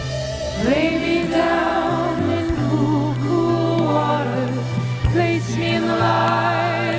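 Song with singing: long, held notes with vibrato over a steady bass line and occasional drum hits.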